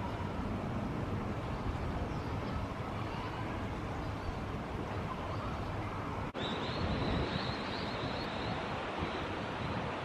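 Steady outdoor rush of flowing stream water with wind noise on the microphone, broken by a brief drop-out about six seconds in.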